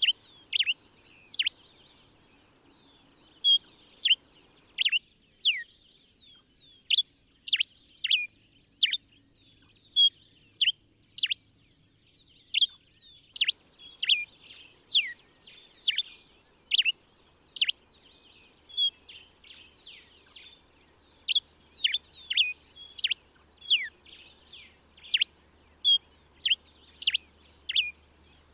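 Common diuca finch (Diuca diuca) singing: a continuous run of short, sharp, high notes, many of them quick downward slurs, about two a second.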